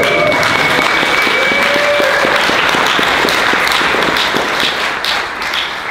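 Audience clapping and cheering, dying down near the end.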